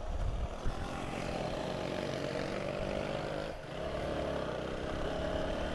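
Motorcycle engine running steadily under load as the bike climbs a steep hill, dipping briefly about three and a half seconds in.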